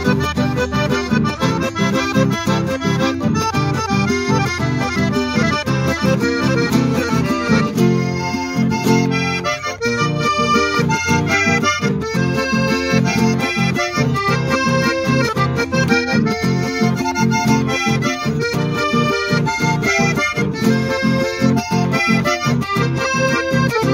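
Button accordion played solo: a lively instrumental passage with a melody in the treble buttons over a steady pumping bass-and-chord rhythm. One chord is held for about a second and a half, around eight seconds in.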